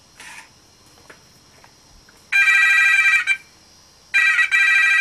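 A telephone ringing twice with a trilling electronic ring, each ring about a second long, the second starting a little under a second after the first ends.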